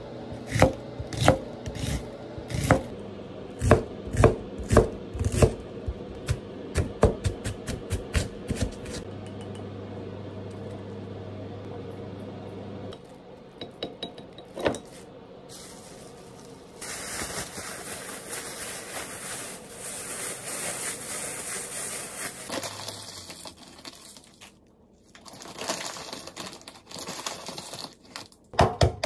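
Kitchen knife slicing an onion on a wooden cutting board, the blade knocking on the board about twice a second and quickening near the ninth second. Later, a thin plastic bag of minced meat rustles and crinkles as it is handled.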